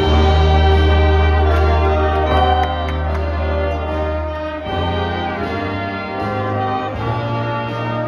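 Indoor marching winds ensemble playing loud held brass chords over a deep bass note, the harmony shifting about halfway through and again near the end.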